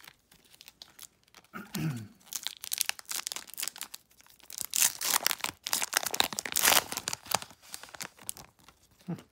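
Topps Prime football card pack wrapper being torn open and crinkled: a run of rustling and tearing that is loudest past the middle.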